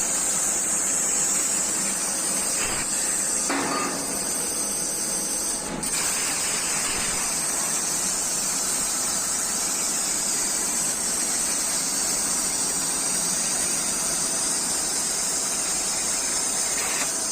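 CNC plasma cutter cutting 3 mm sheet metal at 45 A: a steady, loud high hiss of the plasma arc and its compressed air, with the table's extraction fan running beneath. Near six seconds in there is a short dip in level and a sharp click, after which the hiss carries on unchanged.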